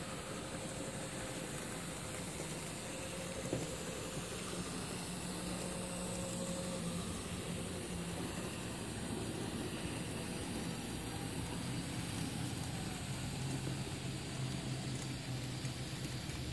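N-scale model V 100 diesel locomotive running on track with its coaches: a steady low hum over hiss, the hum dropping slightly in pitch about two-thirds of the way through.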